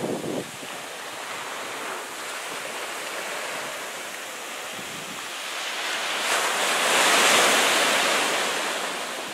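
Small waves breaking and washing up a sand beach, with wind buffeting the microphone. The noise swells to its loudest about seven seconds in, then eases.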